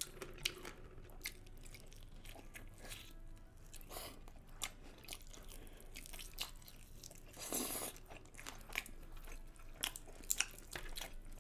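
A person biting and chewing sauce-coated chicken wings: faint wet smacks and clicks of mouth and teeth as meat is pulled from the bone, with one longer noisy sound about seven and a half seconds in.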